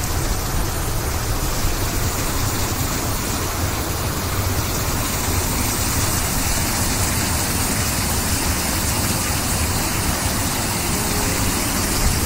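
Meltwater rushing through a breach in an earth dam and spilling over small cascades: a steady, noisy rush with a low rumble underneath.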